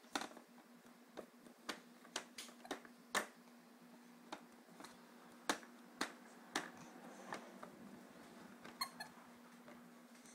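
Stiff pages of a toy book on a baby's plastic activity saucer clacking as a baby flips them back and forth. There are about fifteen sharp, irregular clicks and clacks.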